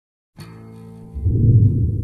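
Music comes in after a brief silence, quiet at first, then swells much louder about a second in, heavy in the low notes.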